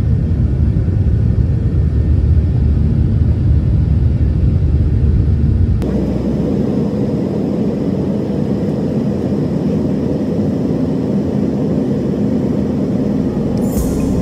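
Airliner cabin noise during the takeoff roll: a loud, heavy low rumble of the engines. About six seconds in it changes abruptly to a steadier, higher cabin hum of the plane in flight.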